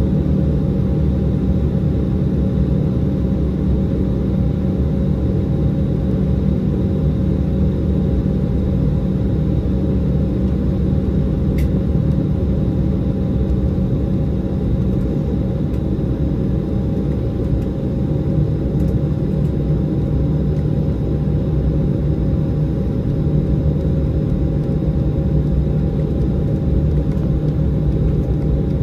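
Cabin noise of an Embraer E195 taxiing: the steady hum of its GE CF34 turbofans at taxi power over a low rumble, with a few steady whining tones.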